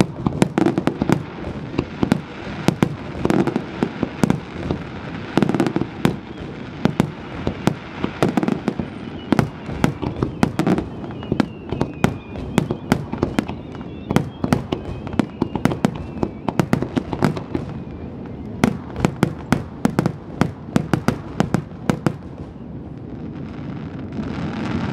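Wide star mine fireworks barrage: aerial shells bursting in a rapid, irregular string of sharp bangs, often several a second, their reports running into one another. The bangs thin out and stop about two seconds before the end.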